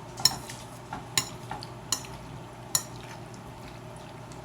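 A metal utensil clicking and scraping against a bowl while mac and cheese is scooped up, four sharp clinks in the first three seconds.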